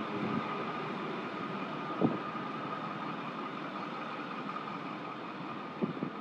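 Steady droning background noise with a faint high hum. A single sharp knock comes about two seconds in, and a few softer knocks follow near the end.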